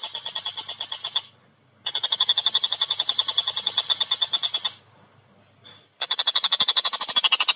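Collared kingfisher (tengkek buto) calling a fast, rattling series of sharp repeated notes, about eight a second. It calls in three bouts, breaking off briefly just over a second in and again for about a second around five seconds in.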